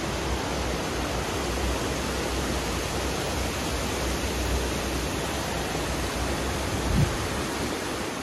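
Water spilling over a low river weir, a steady rushing noise. A brief low thump about seven seconds in.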